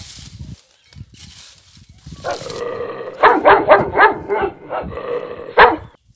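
A dog yelping and barking, a held whine about two seconds in followed by a quick run of about eight sharp, high yelps, the last the loudest. Before it, rustling through dry grass.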